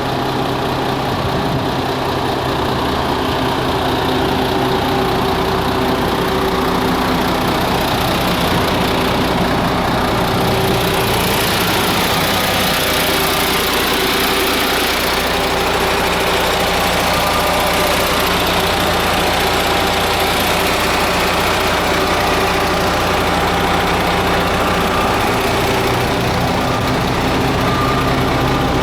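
MAN TGS 400 concrete mixer truck's inline-six diesel engine running steadily, at idle. From about ten seconds in the sound turns brighter and noisier, then holds steady.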